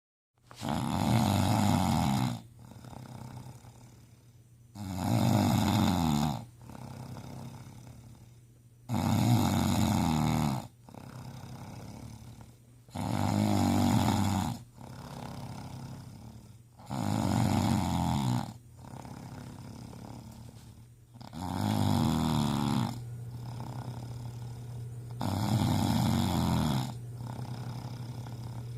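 A man snoring loudly in his sleep. There are seven loud snores about every four seconds, each lasting one to two seconds, with a quieter breath between them.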